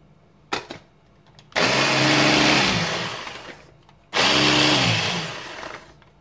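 MR DIY multi-function blender's chopper attachment running in two pulses of about two seconds each, the motor whirring and the blade chopping food in the plastic bowl, the pitch sinking as the motor spins down after each pulse. A short click comes about half a second in.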